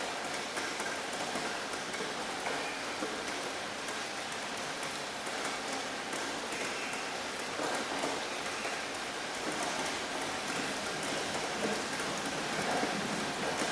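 Steady rainfall with many small drops pattering on surfaces.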